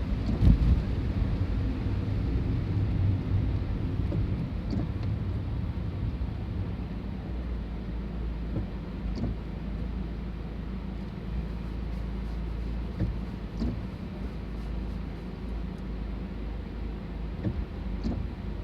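Low, steady rumble of a diesel train, loudest about half a second in and slowly fading, with a few faint clicks.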